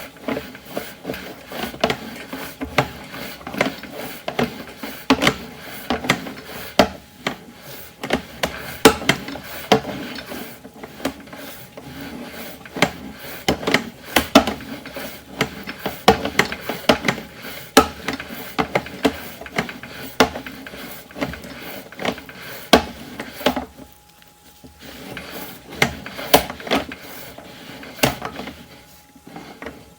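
Sewer inspection camera's push cable and head knocking and rubbing against pipe and fittings, in a dense run of irregular clicks and scrapes that thins out about two-thirds of the way in.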